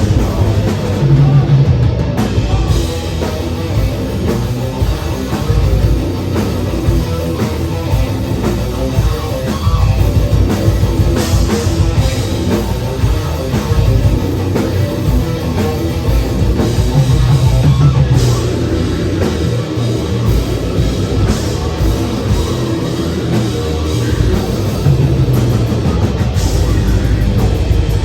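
Death metal band playing live at full volume: distorted guitars, bass and a drum kit with dense, fast drumming.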